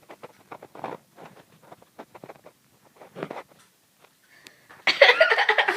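Scattered soft clicks and rustles of handling, then about five seconds in a sudden loud burst of voices laughing.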